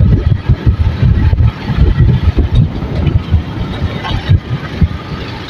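Motorcycle engine running as the bike rides slowly along a street, heard from the handlebars, with an uneven low rumble.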